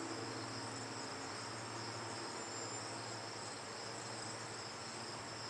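Steady low background noise: an even hiss with faint high-pitched steady tones and a low hum, with no distinct events.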